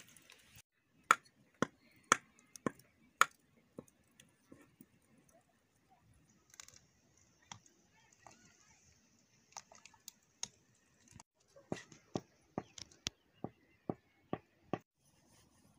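Metal ladle knocking against an iron karahi while stirring a thick batter: sharp clicks about two a second at the start, scattered ones after that, and a faster run near the end. A faint high hiss runs through the middle.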